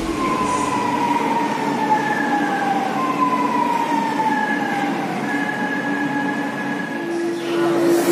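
Chennai Metro electric train pulling into the station, its motor whine falling in pitch in two long sweeps as it slows. A steady low tone comes in near the end.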